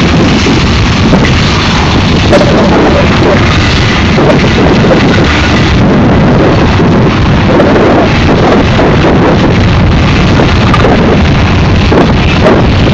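Union Pacific manifest freight train rolling past close by: a loud, steady rumble of steel wheels on rail with scattered sharp clicks and clanks.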